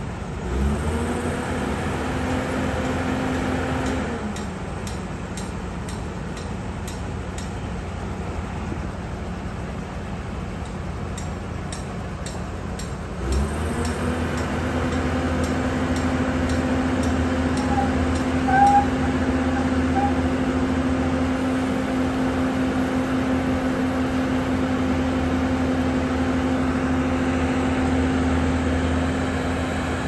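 A heavy diesel engine revs up and holds a steady speed for about three seconds, then drops back to a low idle. About 13 seconds in it revs up again and runs steadily on. Faint scattered ticking comes in between the two runs, and a short high chirp sounds near 19 seconds.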